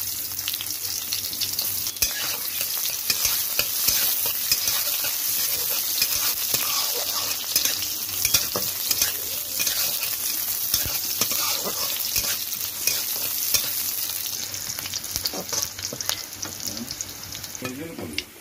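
Sliced onions frying in hot oil in a metal kadhai, sizzling steadily while a metal spatula stirs and scrapes them, with many short clicks of the spatula against the pan.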